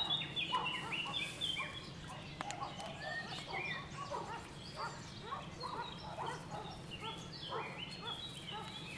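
Dense chorus of many birds calling over one another: short chirps and calls at many different pitches, with a low steady hum underneath.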